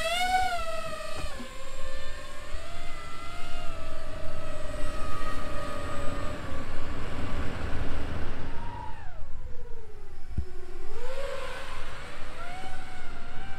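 DJI FPV drone fitted with prop adapters and Ethix P4 propellers, hovering. Its motors and props make a loud whine that rises and falls in pitch with the throttle, dropping low about nine seconds in and climbing again a couple of seconds later.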